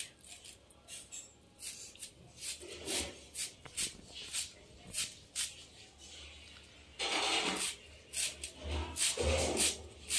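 Cabbage being sliced against the upright blade of a boti (a floor-mounted curved knife), a crisp cut with each stroke, about two a second and unevenly spaced. About seven seconds in there is a longer rasping stroke.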